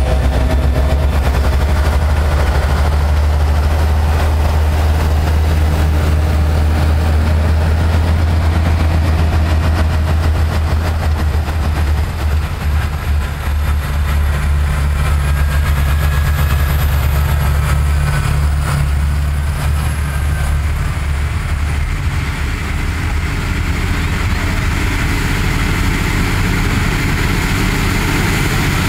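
Claas tractors' diesel engines running steadily under load while pulling Lemken cultivators through the soil, a deep constant hum with a brief dip about halfway through.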